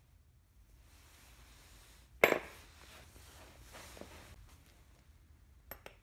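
A steel threaded rod with nuts on its end is set down on a plywood board with one sharp metallic clack about two seconds in, between the soft rustle of gloved hands. Two light metal clicks follow near the end.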